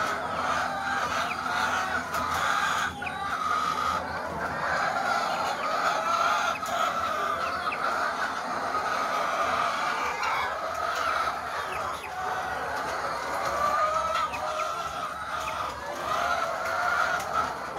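A flock of caged laying hens clucking, many birds calling over one another in a dense, steady chorus.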